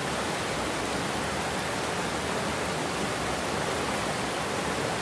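Water pouring over a concrete weir into churning whitewater: a steady, even rush.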